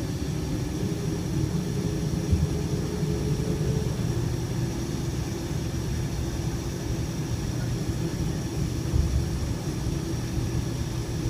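Boeing 747-400 cabin noise while taxiing: the engines' steady low rumble with a steady hum over it. A couple of low bumps, one a couple of seconds in and one near the end.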